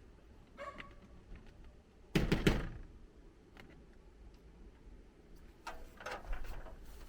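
A few knocks and a short clatter of things being handled, the loudest about two seconds in and another spell near the end.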